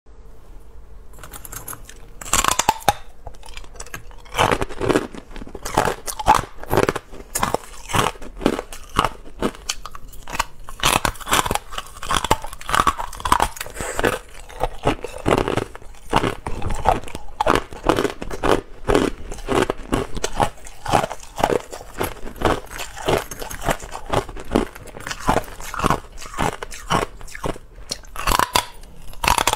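Hard clear ice being bitten and chewed close to a clip-on microphone: a dense, irregular run of sharp crunches and cracks, starting about a second in.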